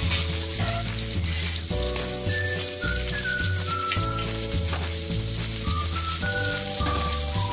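Chopped onion, capsicum and green chilli sizzling in hot oil in a frying pan, a steady frying hiss. Background music with a stepping bass line and a melody plays over it.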